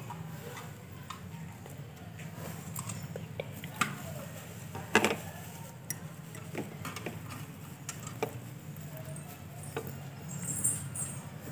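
Light taps and clicks from small puja items being handled at an altar, scattered and irregular, with a sharper click about five seconds in, over a steady low hum.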